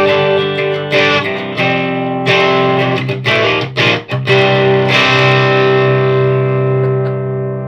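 Electric guitar with a Voodoo Alchemist bridge humbucker, played through a Noise Pollution Plush Box overdrive into a Randall T2's clean channel, giving a warm tone with a little dirt. Chords are strummed, with a few quick muted strokes around three to four seconds in, then a final chord is left to ring.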